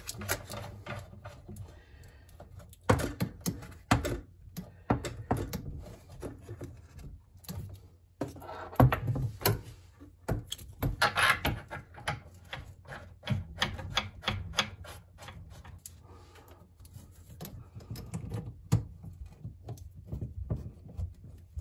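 Irregular small metallic clicks and knocks, with some rustling, as braided stainless water supply lines and their nuts are handled and threaded on by hand to reconnect a bathroom faucet.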